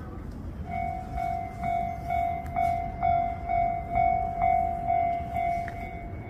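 Japanese railway level-crossing warning bell starting about a second in: an electronic ringing tone that pulses about twice a second, over a steady low rumble.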